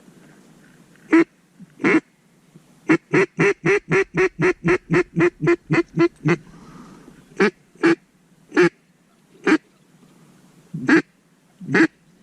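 Loud mallard-hen quacking: two quacks, then a fast run of about fourteen quacks at about four a second, then single quacks spaced a second or so apart.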